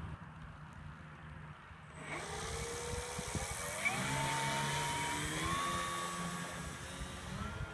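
Radio-controlled Fokker D.VII model biplane's motor and propeller throttling up from about two seconds in, a whine that rises in pitch in several steps as the model runs across the grass for takeoff.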